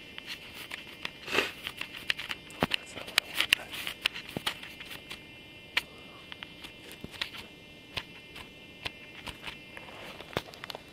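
Handling noise on a handheld camcorder: irregular sharp clicks and taps of buttons and controls being pressed on the camera while its menu and zoom are worked, over a faint steady hiss.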